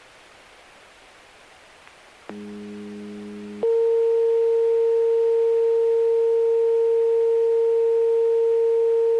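Disaster-prevention radio receiver: static hiss, then a little over two seconds in a low buzzing tone for about a second, followed by a loud, steady electronic tone held on one pitch rather than a melody.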